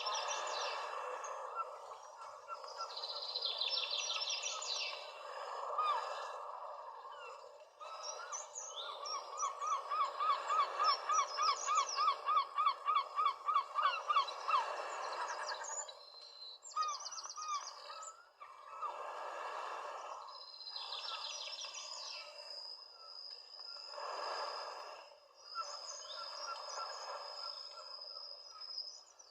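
Birds calling outdoors: several high chirps and trills, and midway one bird repeats a short call about four times a second for several seconds, growing louder.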